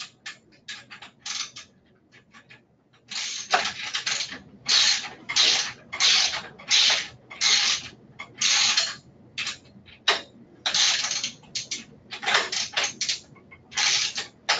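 A 7/16 socket ratchet wrench tightens a wheelchair caster's mounting bolt. A few light clicks and handling noises come first. Then, from about three seconds in, there is a long run of ratcheting strokes, about one and a half a second.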